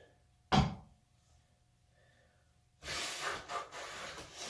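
A sharp knock about half a second in, then, from about three seconds in, rubbing and rustling as the rubber bicycle inner tube and tyre are handled.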